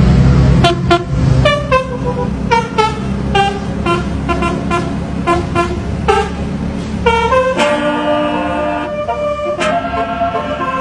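A bus's basuri telolet air horn plays a melody in short, rhythmic notes, then holds longer notes. Under it the bus's engine hums steadily.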